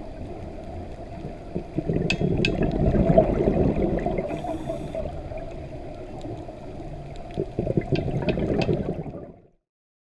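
Bubbling, gurgling water with scattered small pops and clicks, cutting off about half a second before the end.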